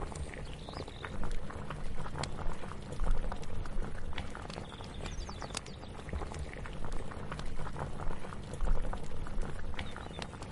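Kitchen cooking ambience: food cooking on a stove, heard as a dense, continuous crackle of small pops and clicks over a low rumble.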